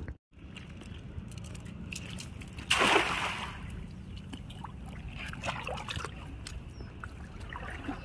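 Hand-thrown cast net hitting the river surface with one short splash a little under three seconds in, then faint trickling and sloshing water as it sinks.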